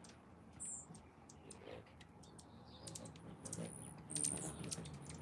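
Faint, irregular clicking, with a few short, very high chirps from hummingbirds at the feeders.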